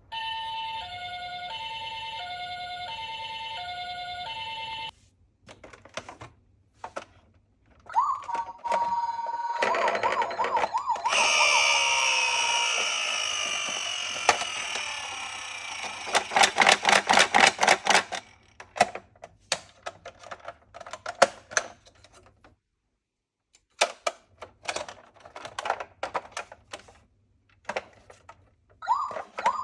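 Toy ambulance minicar's electronic siren sounding a two-tone hi-lo "pee-poh" for about five seconds, then a wavering siren about eight seconds in. Die-cast minicars then rattle and clatter as they roll down a cardboard slope, followed by scattered clicks and knocks.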